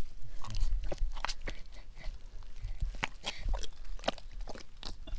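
Irregular wet clicks, snaps and squelches of hands digging and grabbing in soft mud, over a low steady rumble.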